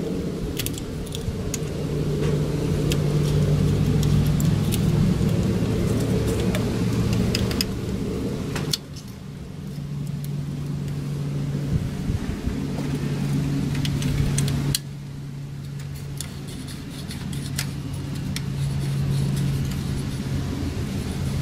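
Light metallic clicks and clinks of hand tools working on a bare engine's timing-belt tensioner area, over a steady low mechanical hum that drops abruptly in level twice.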